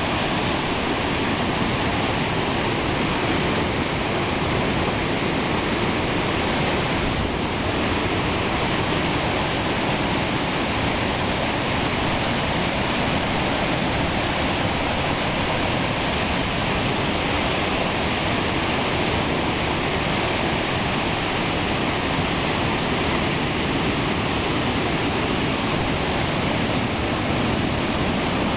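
The South Fork of the American River rushing steadily through a swimming hole after heavy rain, a continuous even rush of water.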